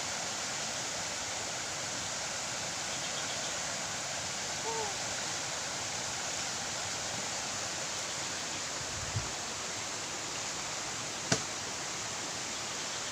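A steady, even hiss throughout. A brief faint voice comes about five seconds in, a low thump about nine seconds in, and a single sharp click a little after eleven seconds.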